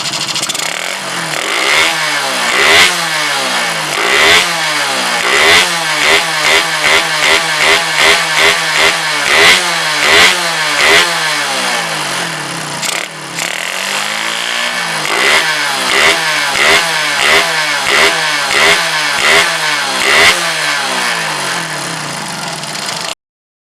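Suzuki Shogun 125 single-cylinder four-stroke motorcycle engine, freshly bored up with a Thunder piston, being revved in quick repeated throttle blips, about one or two a second, with a short drop back to idle around the middle. It cuts off abruptly near the end.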